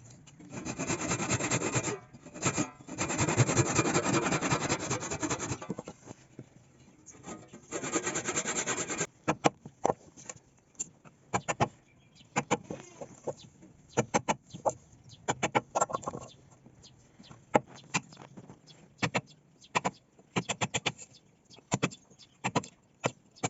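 Hand tools working wood: three long spells of rasping, rubbing strokes over the first nine seconds, then a run of irregular sharp taps and knocks on wood.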